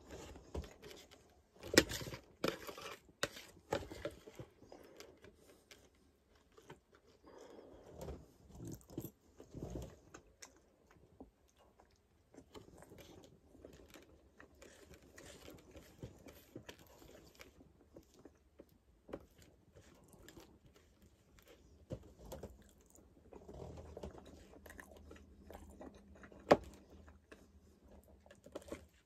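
A man chewing and biting food close to the microphone, with sharp clicks of a metal fork against a plate, the loudest about two seconds in and again near the end.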